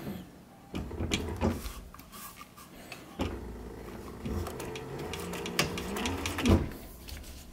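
Sewing machine stitching a zipper onto leather. A few handling clicks come first, then the machine runs steadily from about three seconds in until near the end.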